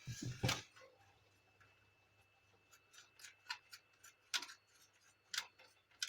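Light, irregular clicks and taps from the plastic gear assembly of a Canon imageCLASS MF4750 laser printer being handled and turned by hand. There is a quick cluster of clicks at the start and single sharper ticks later on.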